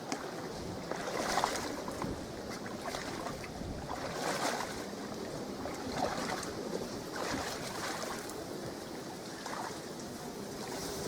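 A person wading through thigh-deep water, with a swishing splash at each stride, about every second and a half, while towing an inflatable boat by hand.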